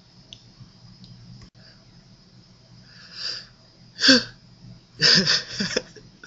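A person's sneezing: a breathy intake of air about three seconds in, a short sharp sneeze about a second later, then a quick run of three or four more voiced bursts near the end.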